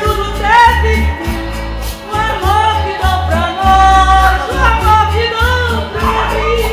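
Music with a voice singing a wavering melody over a steady, pulsing bass beat.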